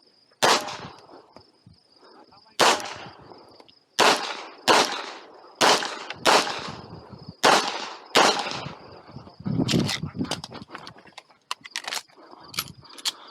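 Handgun shots during a competition stage run: about eight loud, sharp shots in singles and quick pairs, each with a trailing echo, followed by lighter cracks near the end.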